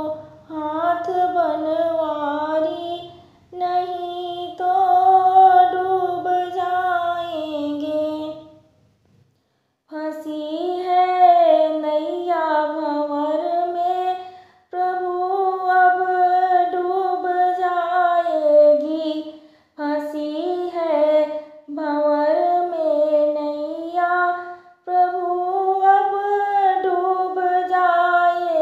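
A woman singing a Hindi devotional bhajan to Krishna solo, in long melodic phrases with brief breath pauses between them and one longer gap of about a second about a third of the way in.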